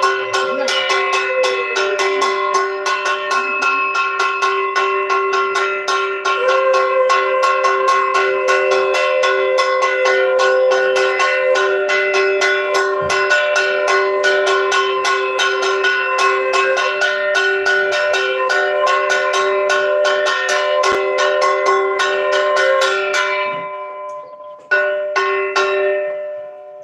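Puja bells rung rapidly: metal bells struck several times a second with their tones ringing on, dying away near the end after one last strike.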